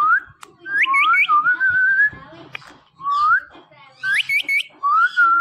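Ringneck parrot whistling a repeated phrase: rising whistles, a quick run of three sharp upward chirps, then a wavering held whistle, given twice over.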